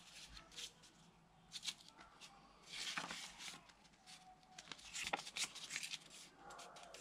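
A sheet of origami paper being folded and creased by hand: a series of short, crisp rustles and crackles, loudest about three seconds in and again about five seconds in.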